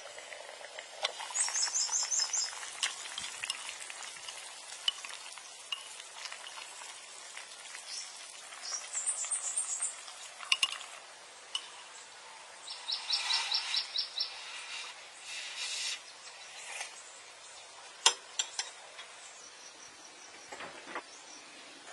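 Soup simmering in a clay pot with a faint steady hiss, and wooden chopsticks stirring and clicking sharply against the pot now and then. A bird calls three times in quick runs of high chirps.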